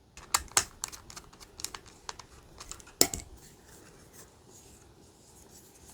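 Scattered small clicks and taps of a Silicon Power SSD being fitted and lined up in a desktop PC's drive bay, with one sharper knock about three seconds in.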